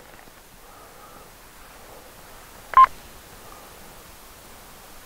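A single short electronic beep from a two-way radio, about three seconds in, over faint, steady background.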